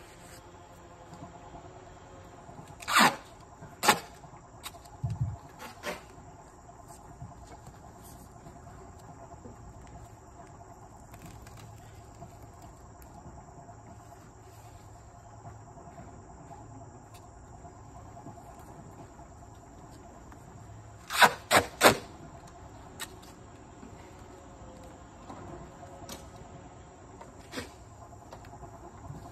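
Steady insect chirring, cricket-like, over a quiet rural background. A few sharp clicks or knocks cut through it: two about three seconds in, a few smaller ones soon after, and a quick run of three about twenty-one seconds in.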